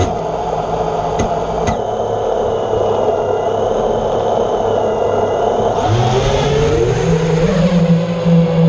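Small brushless drone motors spinning up and running steadily with a high whine. About six seconds in, the pitch climbs and then holds higher.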